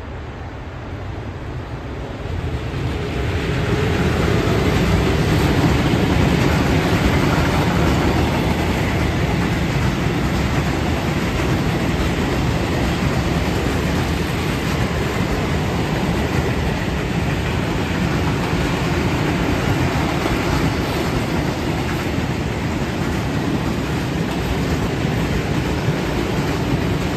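Freight train of open coal wagons passing close by, hauled by Škoda class 182 electric locomotive 182 143. The noise grows over the first three or four seconds as the locomotive comes up and passes, then holds as the steady running noise of the wagons' wheels on the rails.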